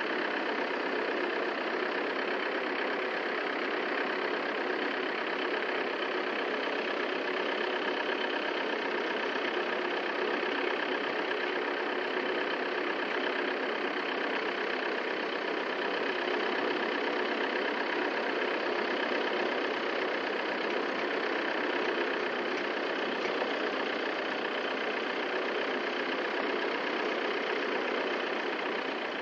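Steady engine-like machinery noise running without change, with no knocks or breaks.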